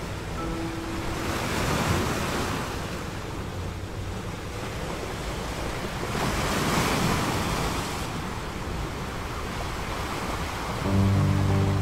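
Sea surf washing onto a sandy beach, a steady rush of waves that swells about two seconds in and again midway. Music comes in near the end.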